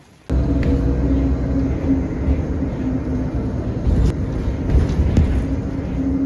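Steady low rumble of a moving vehicle heard from inside the cabin, starting abruptly just after the start, with a faint hum and a few light clicks.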